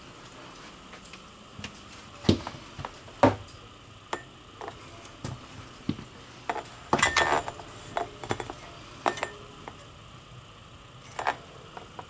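Scattered light knocks and clicks from handling and moving about inside the RV, with a short rattling cluster about seven seconds in.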